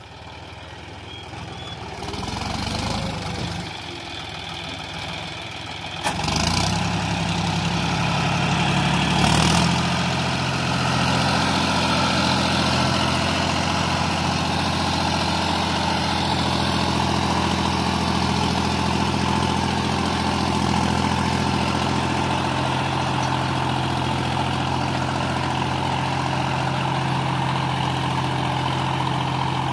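John Deere 5310 tractor's three-cylinder diesel engine working under load as it pulls a two-bottom mouldboard plough deep through the soil. The sound grows louder over the first few seconds, changes abruptly about six seconds in, and from about ten seconds in runs steady and even.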